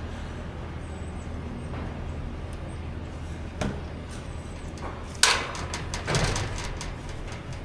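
An engine running with a steady low hum, with two sharp knocks, one about three and a half seconds in and a louder one about five seconds in.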